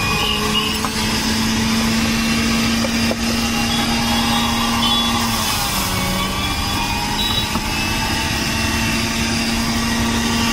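Electric juice extractor's motor running with a steady hum while it juices aloe vera gel and ginger. Its pitch dips briefly about halfway through.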